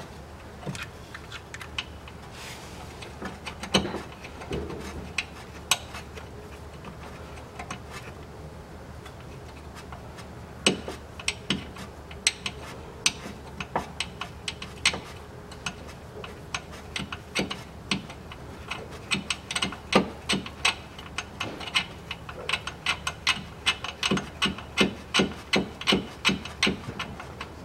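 Ratchet wrench clicking as the bolts of a Haldex coupling filter cover are tightened. The clicks come in short runs, then turn into a steady run of about two strokes a second near the end.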